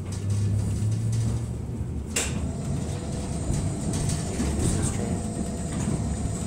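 Vintage electric railway car running along the track, heard from inside the car: a steady low rumble with one sharp clack a couple of seconds in, and a faint steady whine from about three seconds on.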